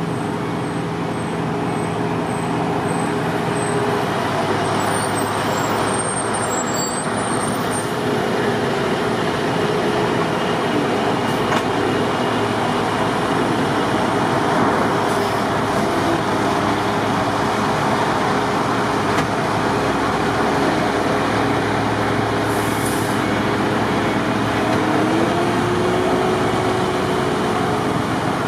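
Heavy diesel snow-clearing machinery, loaders fitted with snowblowers, running steadily: a constant engine drone under a broad, even rush of noise, with one engine's pitch rising slightly near the end.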